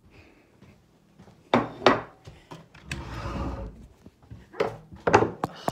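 Handling noise as a phone is carried and set in place: several sharp knocks and bumps, with a short rustle in the middle.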